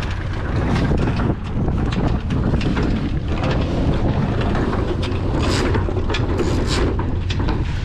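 Strong wind buffeting the microphone aboard a small sailboat under sail, a steady loud rumble with water rushing past. A few short hisses stand out about five and a half and nearly seven seconds in.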